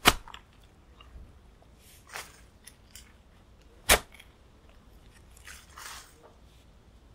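Shovel digging into earth: two sharp crunching stabs of the blade, one at the start and one about four seconds later, with softer crunching scrapes in between.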